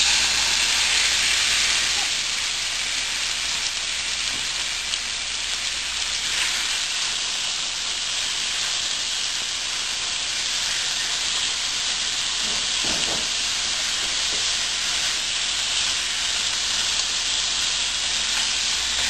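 Raw chicken pieces frying in a hot wok with browned garlic: a steady, even sizzle, a little louder in the first couple of seconds after the chicken goes in.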